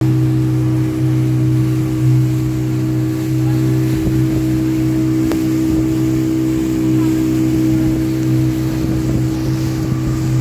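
Motorboat engine running steadily under way, a constant low drone that holds the same pitch throughout.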